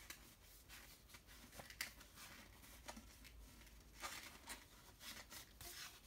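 Faint rustling and crinkling of packaging being opened by hand, with a few light clicks and a short spell of louder rustling about four seconds in.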